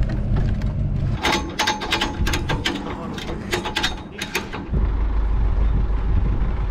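Ratchet strap being cranked tight: a run of a dozen or so quick metallic clicks over about three and a half seconds, with an engine idling low underneath before and after.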